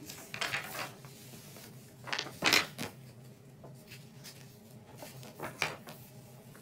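Paper pages of a small printed booklet being turned and handled, giving three brief rustles: one just after the start, a louder one about two and a half seconds in, and another about five and a half seconds in. A faint steady hum runs underneath.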